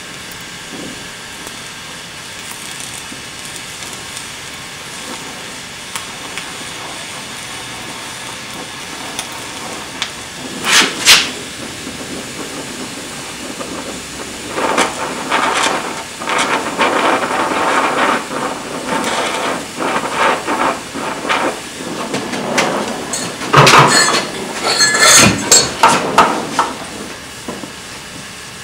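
Oxy-acetylene welding torch hissing steadily at a weld joint. A sharp crackling burst comes about ten seconds in, then dense crackling and spitting bursts from about fifteen seconds to near the end as the weld goes on.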